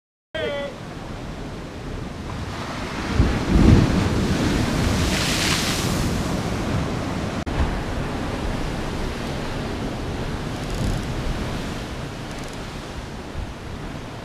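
Sea surf washing and breaking against a rocky shore, with wind buffeting the microphone; the loudest surge comes about three to six seconds in.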